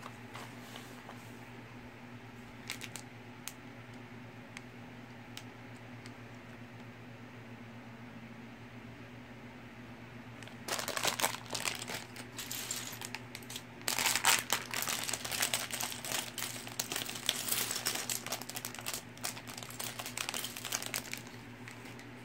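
A hand rummaging through a pile of loose plastic Mega Bloks pieces on a tabletop: a dense clatter of small clicks that starts about halfway through and lasts about ten seconds. Before it there are a few single clicks over a low steady hum.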